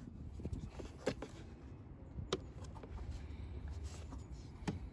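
A few faint, sharp clicks of hands handling a small clip in a car's engine bay, over a faint low hum.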